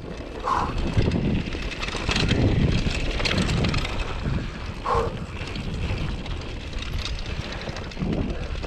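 A 2014 Giant Glory downhill mountain bike rolling fast down a dry dirt trail: a steady rumble of tyres on the ground with many small rattles and knocks, and wind rushing over the microphone. Two short higher sounds come about half a second and five seconds in.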